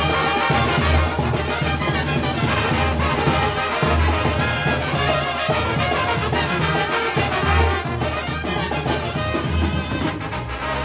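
Mexican banda brass band playing, trumpets and trombones over a strong, pulsing low bass line.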